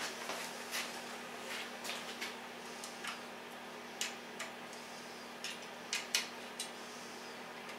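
Scattered light clicks and taps of hand tools and screws on the aluminium frame of a Shapeoko XXL CNC router as its Y-axis screws are loosened, about a dozen at uneven intervals.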